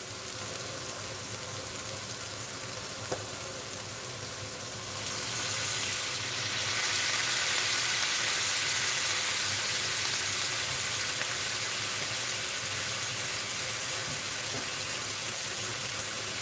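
Vegetables sizzling in a hot stainless steel frying pan. About five seconds in, a splash of water goes in and the sizzle swells into a louder steam hiss, which slowly eases.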